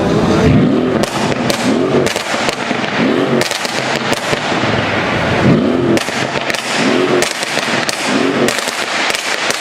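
Tuned Mercedes CLS 63 AMG V8 blipped on the throttle about six times, each rev rising and falling quickly, with rapid bursts of crackles and pops from its crackle exhaust between the revs.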